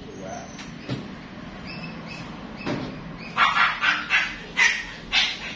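A dog barking in a run of about six short, sharp barks in quick succession in the second half.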